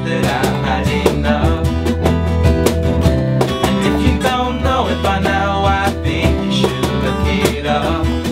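An indie band playing a song acoustically: several acoustic guitars strummed together, with keyboard chords underneath.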